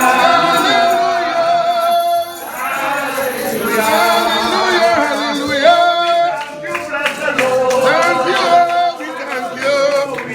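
Congregation singing a hymn together, several voices holding long notes.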